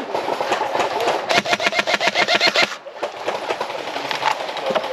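An airsoft gun firing a full-auto burst, about eleven rapid, even shots a second, starting about a second and a half in and lasting about a second and a half. Scattered single airsoft shots crack around it.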